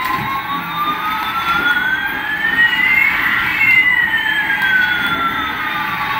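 Electronic sound effect from a battery-powered toy airliner: two synthesized tones glide slowly in opposite directions, one rising and one falling, crossing about halfway through and passing each other, like a slow siren.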